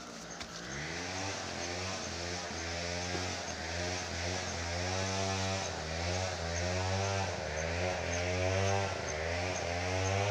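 A small engine running, its pitch rising and falling over and over as it grows steadily louder.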